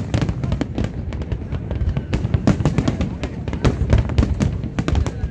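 Aerial fireworks shells bursting in rapid succession, a continuous run of booms and cracks, several a second without a break.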